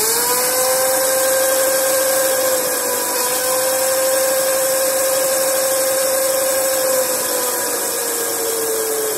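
900-watt BLDC motor spinning up and running at a steady speed under its freshly repaired controller, with a steady electric whine over the noise of the spinning drive chain. The pitch dips briefly about three seconds in and sags slowly near the end. The motor runs, so the controller works again now that the shorted MOSFET has been replaced.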